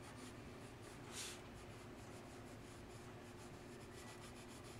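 Red colored pencil scratching softly on drawing paper in quick, light shading strokes, with one brief louder hiss about a second in.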